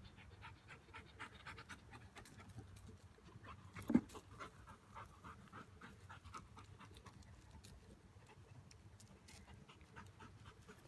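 Faint, quick panting and sniffing of a harnessed tracking dog working a scent trail, with one brief louder sound about four seconds in.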